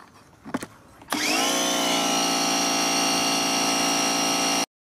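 A couple of clicks as the foam-cannon adaptor is fitted to the spray gun. Then the Parkside PHD 170 C2 pressure washer's electric motor and pump start up, whining up to speed within about a second, and run steadily with the hiss of water spraying from the foam cannon, until the sound cuts off suddenly near the end.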